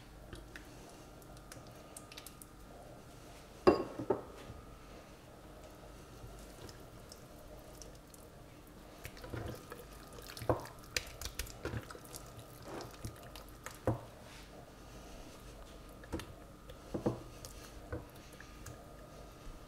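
A raw chicken being coated with a mustard paste in a glass baking dish: quiet wet squishing and handling sounds, with scattered short knocks and clinks against the dish, the loudest about four seconds in.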